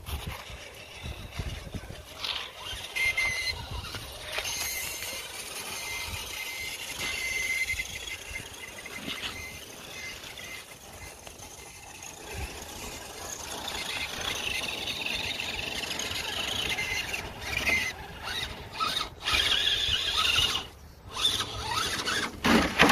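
Electric motor and gear whine of an RC scale crawler truck driving through snow and slush, rising and falling as the throttle is worked, with short bursts of tyre and snow noise.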